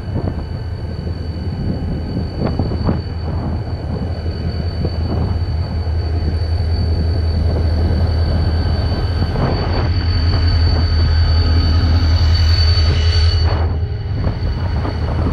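Class 333 diesel locomotive hauling a towed train. A deep engine rumble grows louder to its loudest about twelve seconds in, then eases off, with scattered clicks of the wheels on the track.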